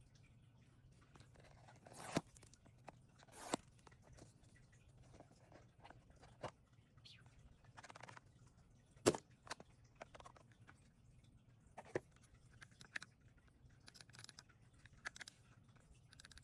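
Packaging being handled during a laptop unboxing: scattered sharp clicks and taps, the loudest about nine seconds in, between short crinkles and rustles of paper, cardboard or plastic wrap.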